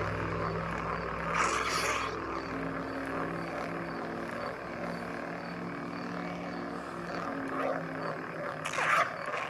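Saberforge Arbiter lightsaber's soundboard playing its steady electronic hum through the hilt speaker while the blade is spun, with two brief louder swing swells, one about a second and a half in and one near the end.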